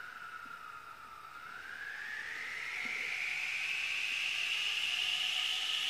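Small 1–4 V DC hobby motor with a plastic CD on its shaft, spinning under that added load with a jet-like whine. The pitch sags slightly about a second in, then rises steadily and gets louder as the motor speeds up.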